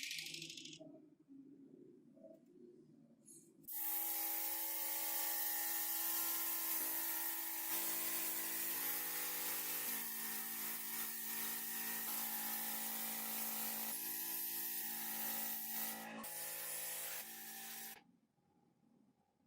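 A small power tool running steadily for about fourteen seconds, a hiss with several held tones over it, starting a few seconds in and cutting off near the end.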